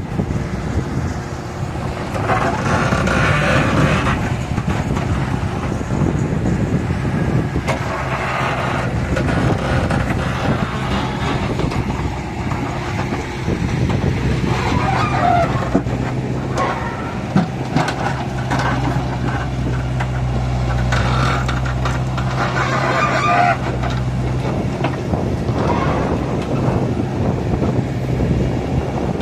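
Excavator's diesel engine running steadily, with louder noisy passages every few seconds as the machine works.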